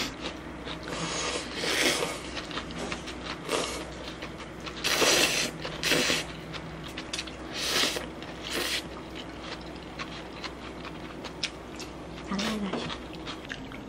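Slurping noodles and sipping broth from a bowl of spicy noodle soup: a run of short slurps, the loudest about five to six seconds in, over a faint steady hum.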